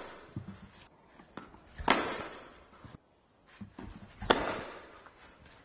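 Cricket bat striking a tennis ball twice, about two and a half seconds apart. Each sharp hit comes about half a second after a softer knock of the ball bouncing on the artificial pitch, and each echoes briefly in the hall.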